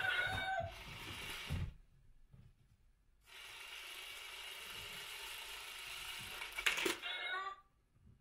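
Coin-stealing cat money box working: a meow, then its small motor whirs steadily for about four seconds as the lid opens and the toy paw sweeps the coin inside, with a click and another meow near the end.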